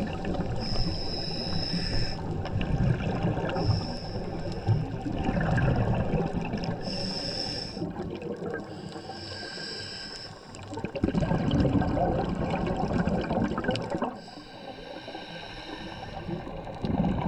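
Scuba diver breathing through a regulator underwater: a high hiss with each inhalation, about five in all, alternating with low bubbling from exhaled air.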